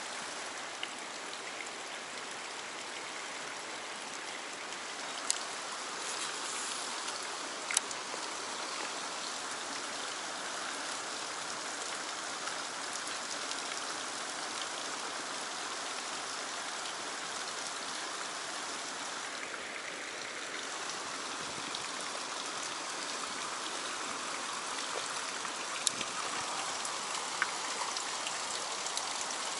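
Stream water rushing steadily through a narrow rock channel, with a few brief sharp clicks.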